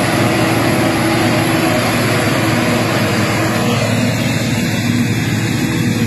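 Self-propelled silage harvester working through standing corn: a steady, loud engine drone mixed with the rush of its cutting and chopping gear.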